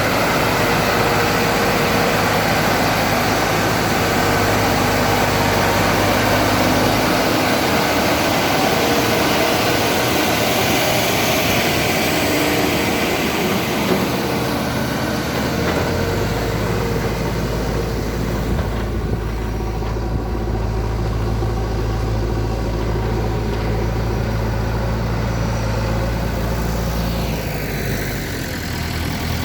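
Heavy diesel engines of a JCB 3DX backhoe loader and a tipper lorry running steadily under load while the backhoe pushes the lorry. The low engine drone shifts pitch a few times as the engine speed changes.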